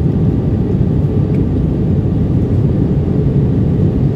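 Steady low rumble of cabin noise inside an Airbus A320-232 descending on approach, from its IAE V2500 engines and the air rushing past the fuselage.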